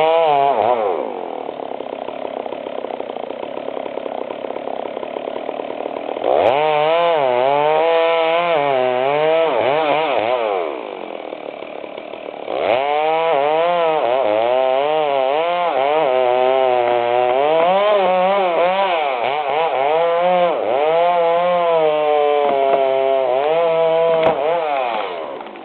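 Chainsaw cutting wood, the engine pitch wavering up and down as it works under load. It eases back to a quieter, steadier running twice before returning to full throttle.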